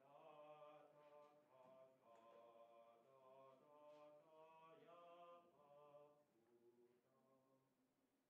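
A student concert band playing slow, held chords, heard faintly; the notes shift every second or so and the sound thins out near the end.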